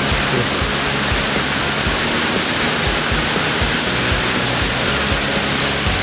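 Steady rush of a waterfall pouring over rocks, with soft background music underneath.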